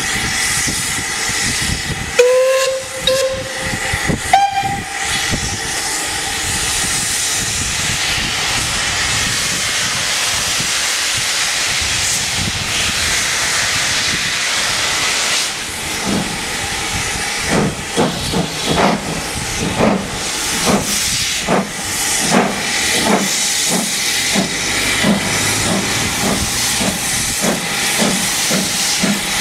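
Double-headed steam locomotives starting a train. There are two short whistle blasts about two and four seconds in, then a steady hiss of steam, and from about halfway the chuffing exhaust beats of the engines getting under way, quickening as they gather speed.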